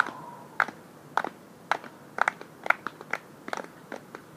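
Sharp, gritty scuffs and crunches about twice a second, coming a little faster, from a hammer thrower's shoes shifting on the concrete throwing circle as he swings the hammer in its preliminary winds.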